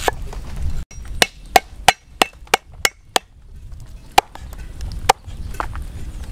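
Cleaver chopping vegetables, including lemongrass stalks, on a thick wooden chopping block: sharp chops, a quick run of seven at about three a second, then a few slower single chops.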